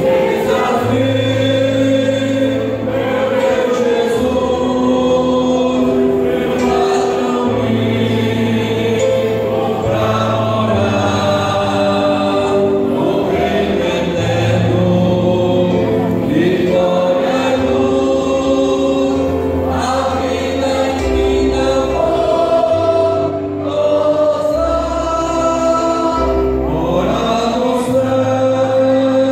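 Mixed choir of men's and women's voices singing together in sustained chords, a few voices amplified through handheld microphones.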